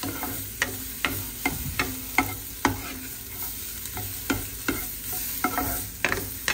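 Black plastic spoon stirring diced onion in a nonstick frying pan, knocking and scraping against the pan about twice a second. Under it, the onion sizzles steadily as it fries in a little oil.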